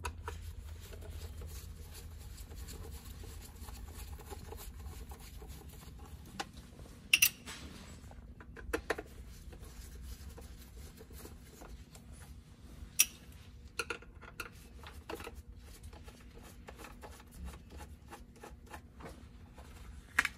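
Phillips screwdriver backing small screws out of a plastic pump cover: faint scratching and ticking of the driver in the screw heads, broken by a few sharp metal clicks. A low steady hum runs underneath.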